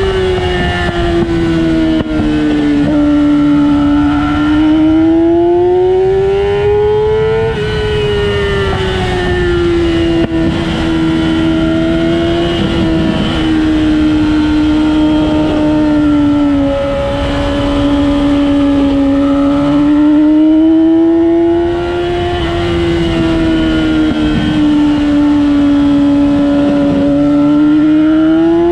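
A vehicle engine running hard on a race track, its pitch rising and falling as the revs climb and drop. The note drops sharply once, about seven seconds in. A steady rush of wind and road noise lies underneath.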